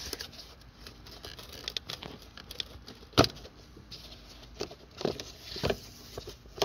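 Audi A4 plastic windshield-washer reservoir being worked loose by hand and lifted out of its mount: irregular rubbing, rustling and knocks of hard plastic, with one sharp knock about three seconds in and a few more near the end.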